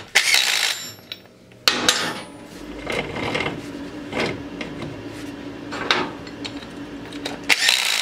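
Cordless power driver with a socket running down the chain-cover bolts: a short burst near the start, a long steady run of about six seconds with a humming tone and rattling clicks, then another short burst near the end.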